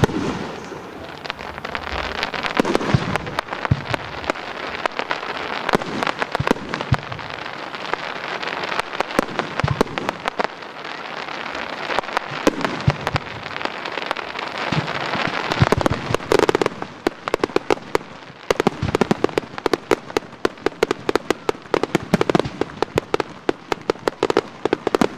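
Aerial fireworks going off: a dense crackling of many small reports, with dull thumps of shells bursting now and then. The loudest burst comes about two-thirds of the way in. After it the crackle thins into separate sharp pops.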